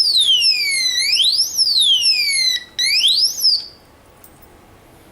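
LK327 alarm padlock's siren sounding after a shake of the bike set off its motion alarm. It is a high electronic wail that sweeps down and back up about every second and a half, drops out for a moment, then stops about three and a half seconds in.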